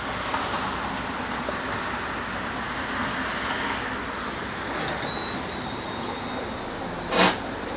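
Articulated city bus heard from inside: steady engine and road noise through the cabin, with one short, loud hiss-like burst about seven seconds in.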